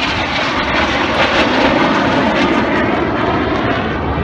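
Red Arrows BAE Hawk T1 jets flying past with a loud, steady jet roar that swells to a peak about one and a half seconds in and then eases slightly.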